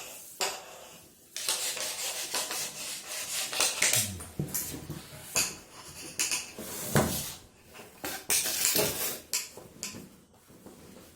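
Metal kitchen pots and utensils clattering and scraping as they are moved, with long breathy hisses from a king cobra among them.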